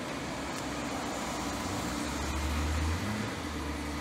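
The 6 hp air-cooled single-cylinder Robin engine of an ST41 walk-behind tiller running steadily at idle. Its low note swells for a moment and then settles again.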